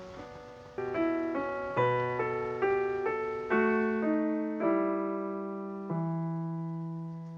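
Background piano music: gentle chords struck every second or so, each left to ring out and fade.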